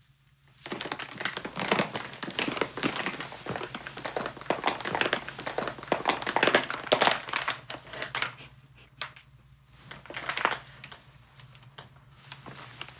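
A plastic bag of chips crinkling and crunching as a person sits down on it. There is a dense run of crackles for several seconds, then scattered crackles with one more burst near the end.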